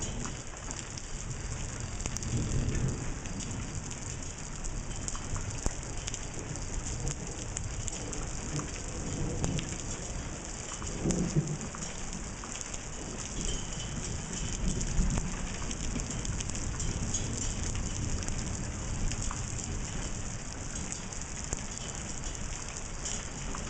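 Steady rain pattering during a thunderstorm, with a low rumble underneath that swells a few times.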